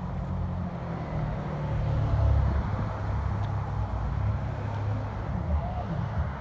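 Low, uneven outdoor rumble, loudest about two seconds in.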